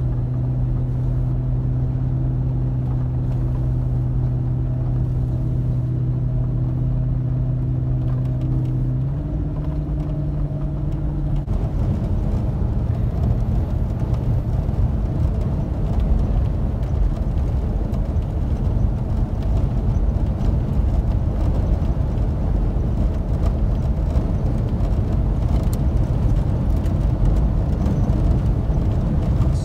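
Car interior noise while driving on a highway: a steady low engine hum with tyre and road rumble. About eleven seconds in, the hum gives way to a rougher, slightly louder road rumble.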